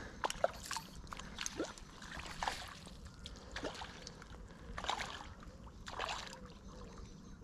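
Water splashing and sloshing in several short, irregular splashes, from a hooked roach being played close in at the surface of the river.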